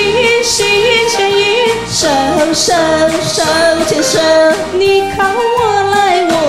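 Music: a Chinese pop duet sung live over a karaoke backing track with a steady beat, female voice carrying the melody.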